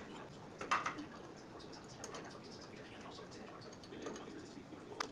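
Steel C-clamp being set against a truck frame rail and screwed tight: faint metal ticks and clicks, a short scrape just under a second in, and a sharp click near the end.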